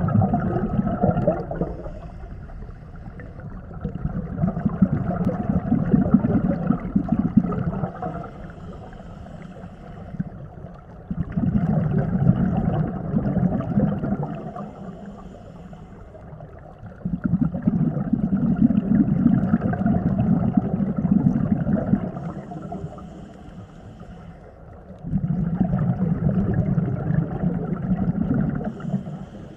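Scuba diver breathing through a regulator underwater: long bubbling exhales about every six to seven seconds, with quieter inhales between, four full breaths in all.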